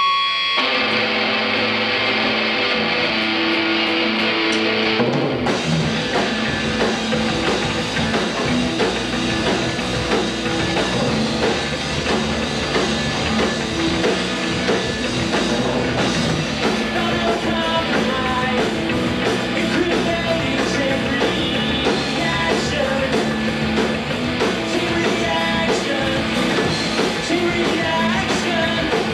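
Live rock band on electric guitars and drums: sustained guitar chords alone at first, then the drums and low end come in about five seconds in and the full band plays on steadily.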